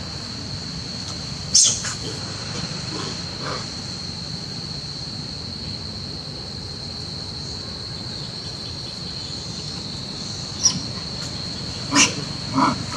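Steady, high-pitched insect trilling in the evening, joined by a few short, sharp monkey squeals: one about a second and a half in, and several close together near the end.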